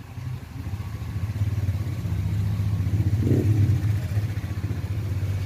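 Low rumble of a motor vehicle's engine running, growing louder after about a second and then holding steady.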